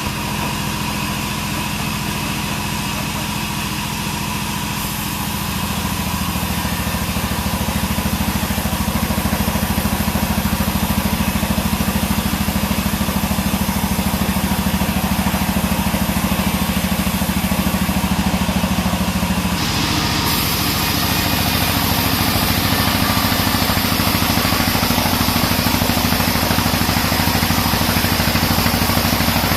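A 42-inch band sawmill running, a steady machine drone. Its tone and level shift about five seconds in and again about twenty seconds in.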